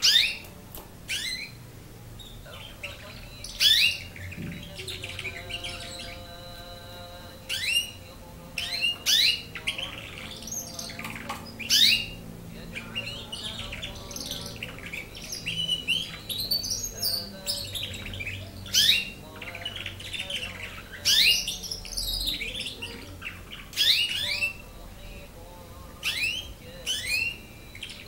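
A nine-month-old domestic canary, still learning its song, singing in short bursts of sharp chirps and quick rising and falling whistled sweeps every second or two.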